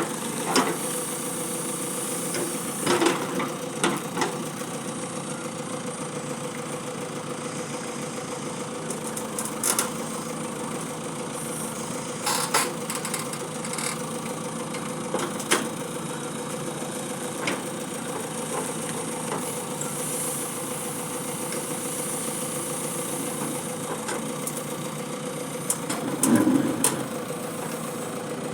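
Tractor engine running steadily, with a few short metallic clanks and knocks scattered through, the loudest near the end.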